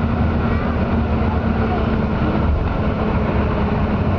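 Steady engine and road noise of a moving vehicle, a low rumble under a constant engine hum.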